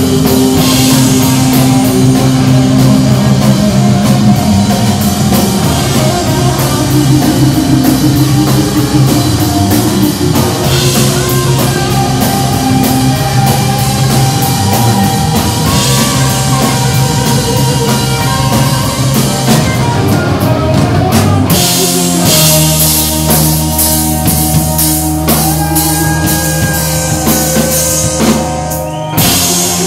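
Loud live rock band playing: electric guitar, bass guitar and drum kit with cymbals. About 22 seconds in, the music changes to steady, held low notes.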